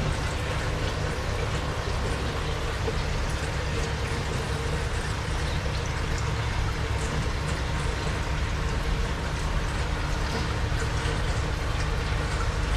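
Aquarium filtration running steadily: water splashing and trickling over a constant low pump hum.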